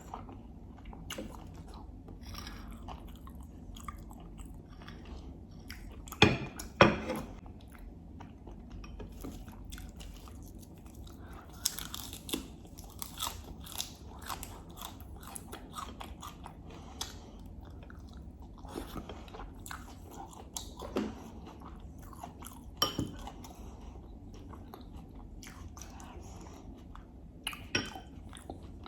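Close-miked chewing and biting of ghormeh sabzi and baghali polo with lamb: a continuous run of mouth sounds and small crunches. There are two loud sharp sounds about six and seven seconds in, and a few smaller ones later.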